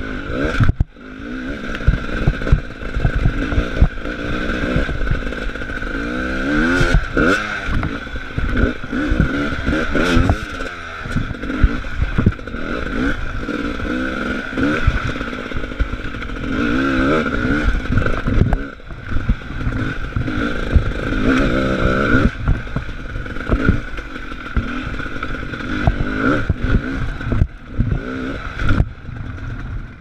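GasGas enduro motorcycle engine revving up and down in short bursts at low speed, with frequent knocks and clatter as the bike works over rough ground and wooden planks.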